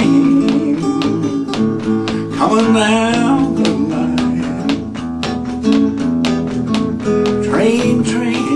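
Steel-string acoustic guitar picked and strummed in a driving rockabilly-blues rhythm, a steady run of quick notes over ringing chords. A man's voice comes in briefly about two and a half seconds in and again near the end.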